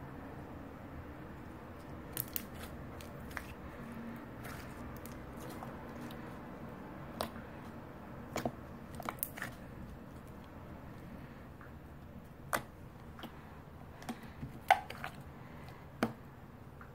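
Homemade slime being squeezed and stretched by hand, giving scattered sharp pops and clicks over a faint steady hiss.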